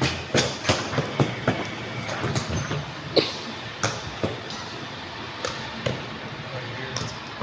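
A run of short, sharp knocks and thumps, several close together in the first second and a half, then scattered single ones.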